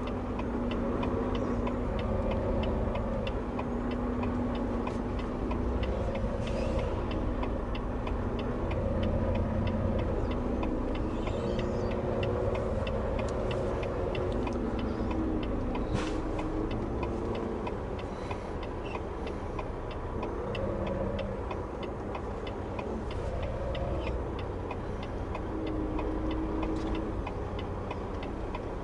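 Inside the cab of a Volvo VNL semi-truck, the diesel engine runs at low speed, its pitch rising and falling as the truck manoeuvres into a parking spot, while the flasher relay clicks steadily.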